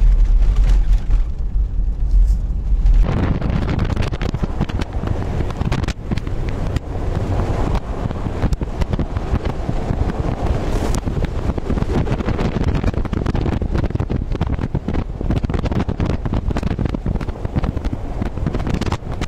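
Car driving across frozen lake ice: a steady low engine and tyre rumble that turns rougher about three seconds in, with many small knocks and rattles as the car jolts over uneven ice.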